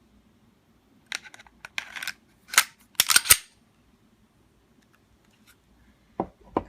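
Semi-automatic pistol being handled and reassembled: sharp metallic clicks and clacks of the slide and parts snapping together, loudest in a quick cluster about three seconds in, with two more clicks near the end.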